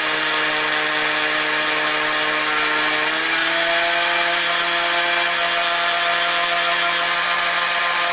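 Jet-surfboard electric motor running on the bench, spinning the jet unit's drive shaft through a plum coupler: a steady high-pitched whine with hiss, its tone stepping up slightly about three seconds in. A hand presses on the motor to test the mount for misalignment, and the motor runs clean, the sound of a well-aligned mount.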